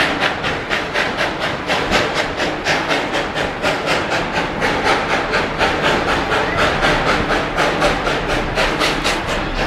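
Steam locomotive hauling the train at a steady pace, its exhaust chuffing at about four to five beats a second.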